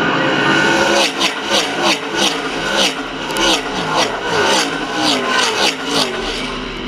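A pack of NASCAR K&N Pro Series West stock cars with V8 engines passes close by. Engine notes rise and fall in quick succession, two or three a second, as car after car goes by.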